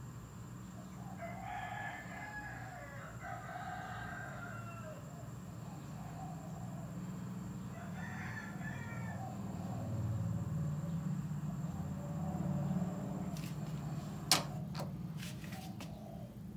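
A rooster crowing, first about a second in and again about eight seconds in, over a low steady hum. A single sharp click comes near the end.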